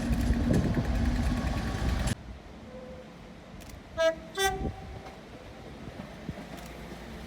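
Loud rumble of a moving train with a steady low hum, cut off abruptly about two seconds in. Then, over a quieter background, a train horn gives two short toots on two different notes, the second a little higher, about four seconds in.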